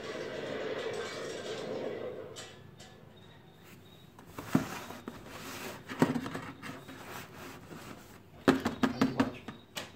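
Fingers tapping on an empty cardboard drinks-carton box: a sharp tap about four and a half seconds in, another about a second and a half later, then a quick run of five or six taps near the end. A steady background sound fades out over the first two seconds.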